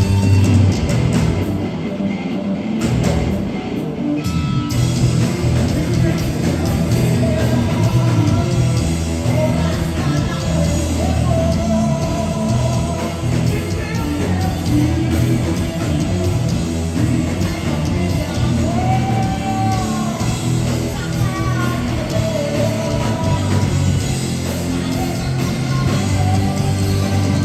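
Rock band playing loud and full: drums, bass and electric guitars, with a lead melody line that slides in pitch.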